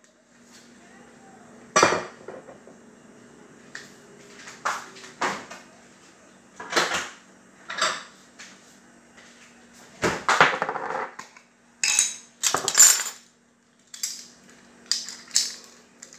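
Kitchen items clinking and knocking on a counter as a glass bottle is capped and set down and jars and measuring spoons are handled: about ten separate knocks and clatters scattered through, over a faint steady hum.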